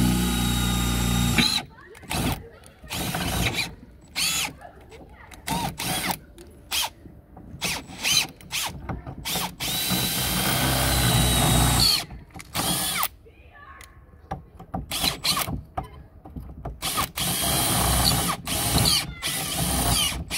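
Cordless drill boring out the last mounting screw of a steel security door handle plate (anti-cylinder-pull escutcheon). It runs in many short trigger bursts, with longer steady runs at the start, around the middle and near the end, its whine rising in pitch as a long run ends.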